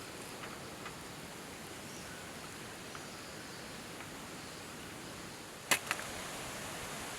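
Steady outdoor background hiss with a few faint scattered ticks, and two sharp clicks in quick succession almost six seconds in.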